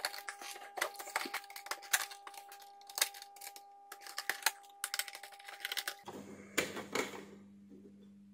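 Screwdriver backing small screws out of a plastic digital clock case: a quick, irregular run of small clicks and ticks. Near the end come a few louder scrapes as the plastic corner panel is pried up off the case.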